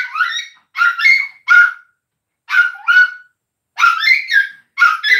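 A young pet animal giving short, high-pitched cries over and over, roughly one a second, each call bending in pitch.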